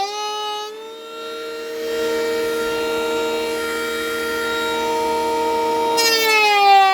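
Katsu 18 V brushed cordless planer, a Makita clone, running with a steady high whine. Its pitch dips and recovers in the first second and again near the end.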